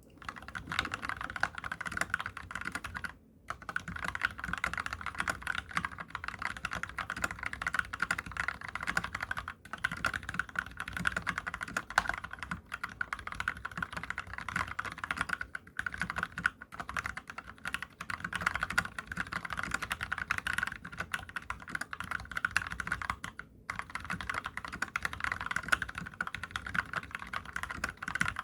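Fast, steady typing on a COX CAREVEL87 mechanical keyboard with spray-lubed Gateron Brown tactile switches, a dense run of keystrokes. The case has not yet been sound-dampened. The typing stops briefly about three seconds in, near ten seconds and near twenty-three seconds.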